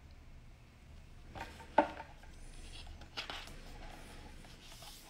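Paper rustling as a large photobook is held and shifted by hand, with a sharp tap a little under two seconds in.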